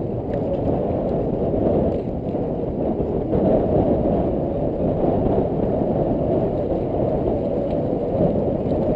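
Wind buffeting the GoPro's microphone: a steady, muffled low rumble with no distinct events.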